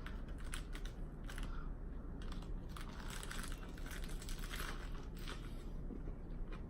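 Close-up chewing of a chicken lettuce wrap: crisp lettuce crunching in the mouth as an irregular run of crunches and crackles.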